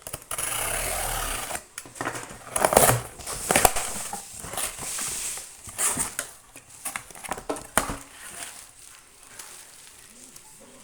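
Packaging crinkling and rustling with sharp clicks and crackles as a set of serving plates is unpacked. It goes quieter about eight seconds in.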